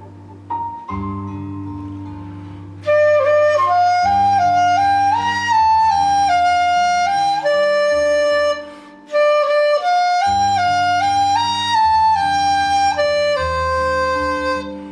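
Bb qudi, a long bamboo Chinese transverse flute, playing a slow, legato song melody over a backing track of low sustained accompaniment notes. The accompaniment plays alone at first, and the flute comes in about three seconds in, with a short breath pause around the middle.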